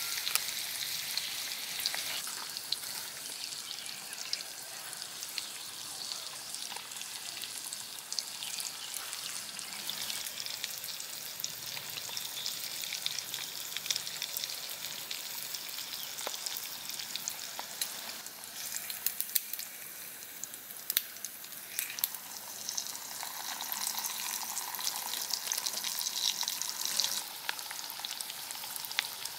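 Hot oil sizzling and bubbling around a slab of bacon deep-frying in a small steel pan, with scattered crackling pops.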